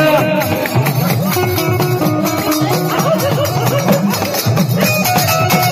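Harmonium playing a melody with steady held notes over a rhythmic hand-drum beat, in traditional Indian folk style.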